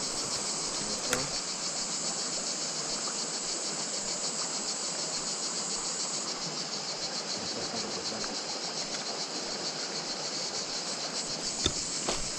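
A dense, steady chorus of cicadas chirring, over the rush of a shallow, rocky river.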